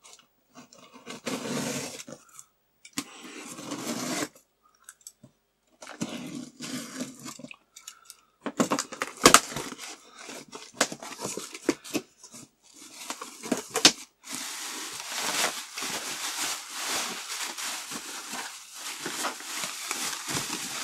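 Packing tape on a cardboard box being slit with a utility knife in three separate drawn-out strokes, then tape and cardboard flaps torn open with a run of sharp crackles and snaps. In the second half, bubble wrap rustles and crackles steadily as it is pulled out of the box.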